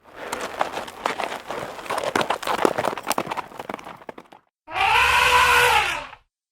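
A scratchy, crackling noise full of small clicks, then, after a brief pause, a kitten's single drawn-out meow that rises and falls in pitch.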